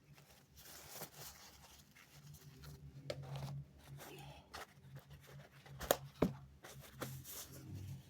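Rustling and handling noises, with two sharp clicks a little under half a second apart about six seconds in, over a steady low hum.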